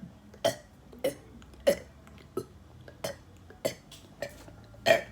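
A person burping over and over in quick succession: about nine short burps, roughly one every half to two-thirds of a second, the loudest near the end.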